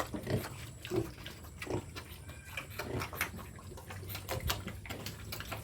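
Pigs making irregular wet smacking and slurping sounds, with scattered short clicks.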